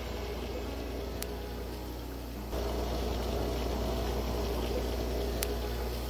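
Aquarium filters and aeration running in a fish room: a steady trickle and bubble of water over a low hum. It gets louder about two and a half seconds in, with two small clicks.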